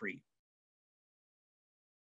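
Dead silence, with the audio cut off completely, after the last syllable of a man's speech fades in the first fraction of a second.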